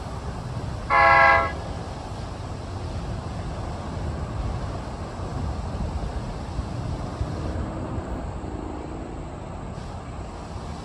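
A single short, loud horn toot, about half a second long, about a second in, over a steady low rumble.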